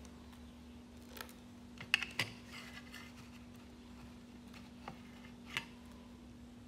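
Quiet feeding noises as a baby macaque is fed yogurt: a few scattered small clicks and taps, the loudest around two seconds in, over a faint steady hum.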